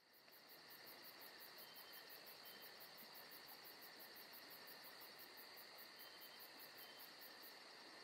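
Faint night-time insect chorus of crickets: a very high, rapid chirping pulse at about five a second over a steady high trill.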